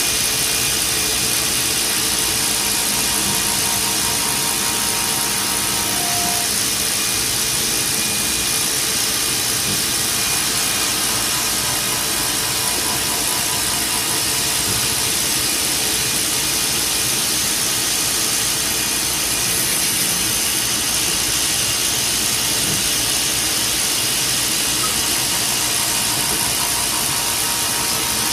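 Hurco CNC vertical mill with its spindle running and an end mill cutting linen phenolic: a steady, even machining whir and hiss, unchanging through the cut.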